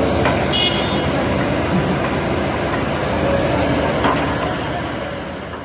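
Kobelco SK220 excavator's diesel engine running under work, with a couple of sharp knocks and a brief high squeal; the sound fades out near the end.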